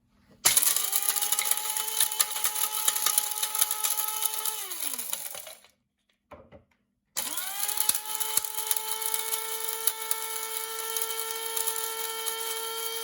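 KRUPS F203 electric blade spice grinder running in two bursts, about four and six seconds long, with a brief pause between. Each burst is a steady motor whine with spices rattling against the blade, and the pitch falls as the motor winds down after release.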